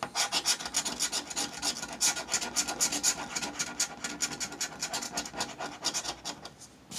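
The coating being scratched off a scratch-off lottery ticket in quick rasping strokes, several a second, that die away shortly before the end.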